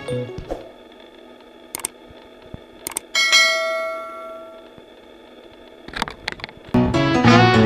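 A single bright bell-like ding about three seconds in, ringing out and fading over a second or so, over a faint steady hum with a couple of sharp clicks. Music starts again near the end.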